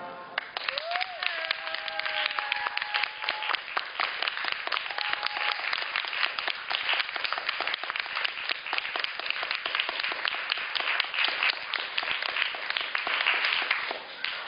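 Theatre audience applauding at the end of a ballet performance. The clapping is dense and steady, and it falls away near the end.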